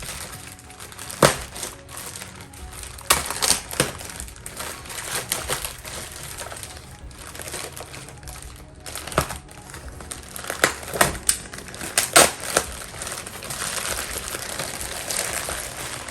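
A shipping package being unpacked by hand: crinkling plastic packaging with sharp handling clicks and knocks, and a denser stretch of crinkling near the end.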